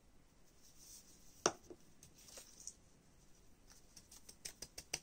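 Quiet handling sounds of a small plastic glitter bottle being shaken and tapped over paper: a few light clicks and taps, the sharpest about a second and a half in, then a quick run of small ticks near the end.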